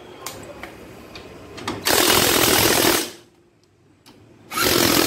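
Cordless impact wrench hammering bolts tight on a car's front suspension: one burst of about a second, a pause, then a second burst starting near the end, with a few light handling clicks before the first.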